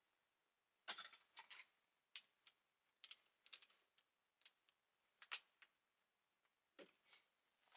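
Near silence broken by faint, irregular small clicks and taps, the loudest about a second in and another a little after five seconds.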